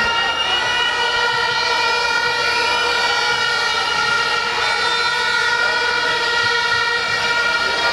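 Siren-like effects blared through a sound system: a steady, loud, many-toned wail, with a few rising siren sweeps laid over it.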